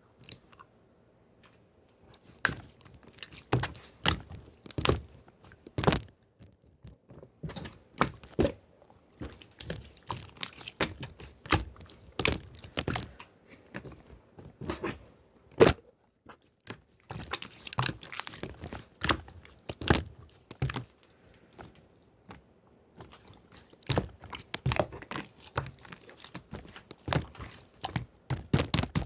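Slime being squeezed, poked and pulled by hand, making irregular sticky pops and clicks, several a second, with one louder snap about halfway through.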